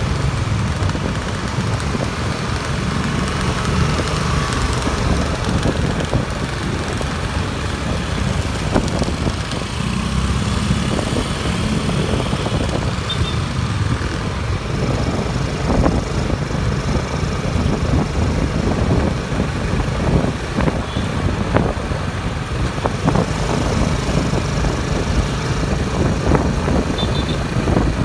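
Road traffic heard from a moving motor scooter: engines of the scooter and of other motorbikes and cars running close by, with a heavy low rumble throughout.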